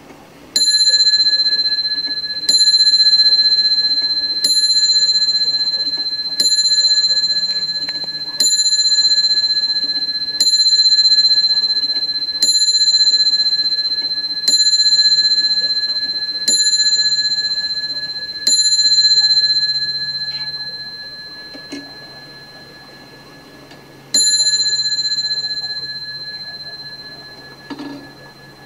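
Franz Hermle & Sons Holland moon-phase clock striking its bell: ten clear rings about two seconds apart, each dying away slowly, then a pause and one more ring. A light knock comes near the end.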